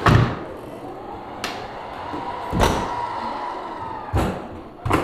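Doors being shut: about five knocks, the loudest at the very start, with a faint steady whine between them.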